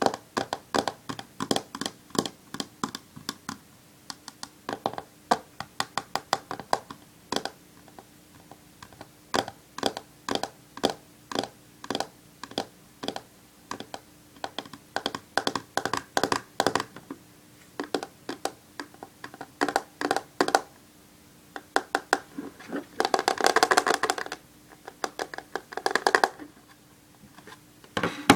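Long fingernails tapping and clicking on a smartphone's hard glossy screen and case, in quick irregular runs. About two-thirds of the way through there is a dense flurry of very rapid taps. A faint steady hum sits underneath.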